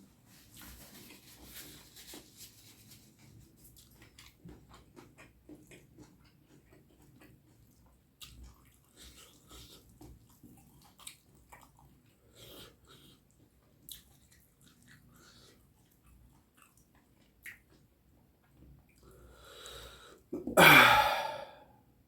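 Close-up chewing and soft wet mouth clicks of someone eating curry and rice. Near the end comes a breath in, then a loud voiced burst from the eater's throat lasting about a second.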